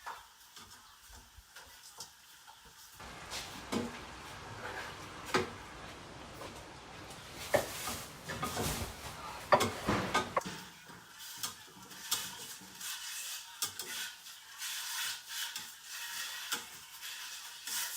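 Spatula scraping and knocking in a frying pan as food is stir-fried, with frying hissing for several seconds in the middle.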